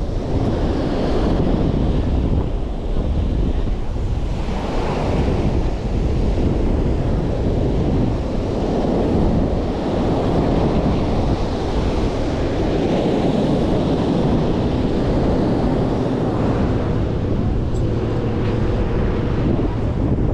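Strong onshore wind buffeting the microphone over breaking surf, in a steady roar that swells and eases in slow surges.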